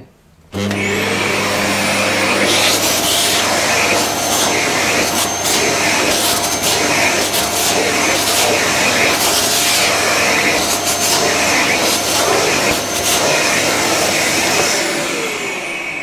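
Vax Mach Air C89MAB multicyclonic cylinder vacuum cleaner switched on about half a second in, its motor whine rising as it spins up, then running steadily. The upholstery tool is worked back and forth over a fabric cat bed, sucking up cat hair with a rhythmic swish about once a second. Near the end it is switched off and the motor winds down with a falling whine.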